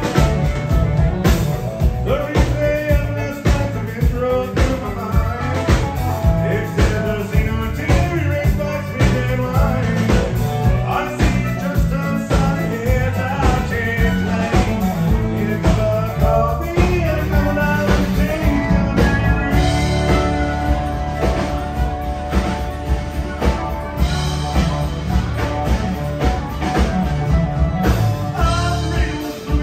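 Live country band playing with fiddle, electric and acoustic guitars, and a drum kit keeping a steady beat.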